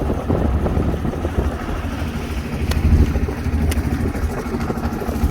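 Boat engine running steadily under way: a continuous low drone.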